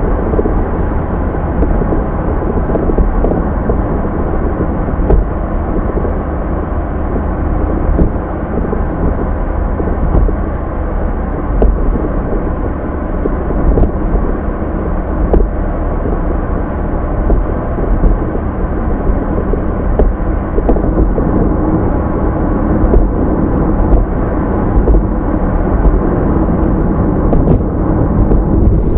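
A car driving: a steady, loud, low engine and road rumble with no clear changes in pitch.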